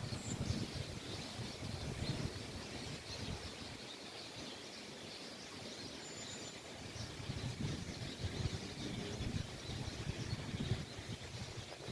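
Many small birds chirping and calling together in a dense, continuous chorus of short high notes, with a brief thin whistle about six seconds in. Low wind rumble on the microphone is strongest at the start and again near the end.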